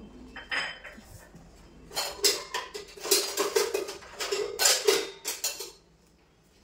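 Stainless-steel plates and pans clattering and clinking in a wire dish rack as someone rummages through it for a utensil. The clanks come thick and fast from about two seconds in and stop shortly before the end.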